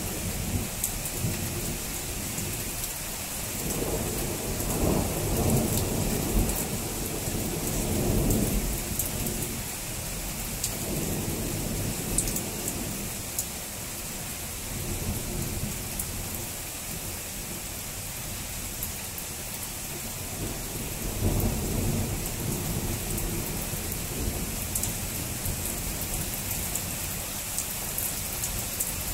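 Steady rain falling during a thunderstorm, with thunder rumbling twice: a long roll from about four seconds in, and a shorter one past twenty seconds.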